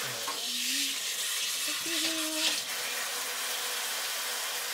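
Handheld shower spraying water in a steady hiss. Two short whining tones come through it about half a second and two seconds in, fitting a scared Pomeranian puppy crying at the water.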